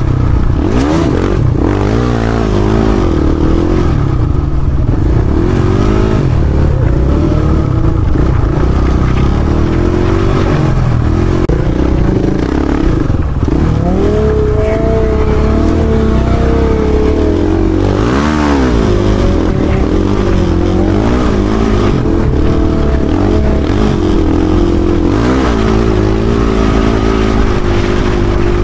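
Dirt bike engine being ridden hard, revving up and down repeatedly as the throttle is worked, with a higher, steadier pitch held for a few seconds around the middle.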